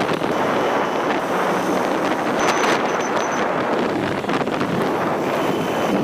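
Steady rush of wind on the microphone over traffic noise, with a few short high peeps near the middle.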